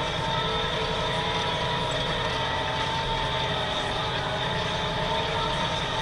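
Deutz 7250 tractor running steadily under load while pulling a plough, with steady whining tones over the engine note.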